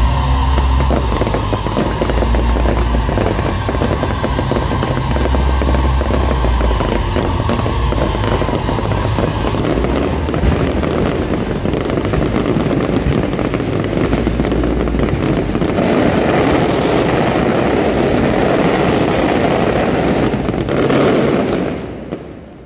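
Fireworks barrage: dense, rapid crackling over deep booms, dying away near the end.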